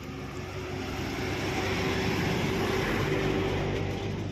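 Heavy loaded multi-axle truck driving past close by: diesel engine and tyre noise that swell as it nears, peak about two to three seconds in, then ease slightly as it moves away.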